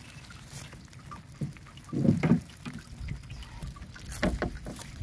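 Handling noise from a mesh fish trap full of small fish being shifted and gathered up: rustling mesh over a low rumble, with a few dull knocks about two seconds in and a quick run of clicks and rustles a little after four seconds.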